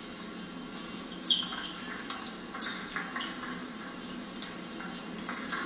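Scattered sharp clicks of a table tennis ball, with short high squeaks of sports shoes on the hall floor, over a steady background hum.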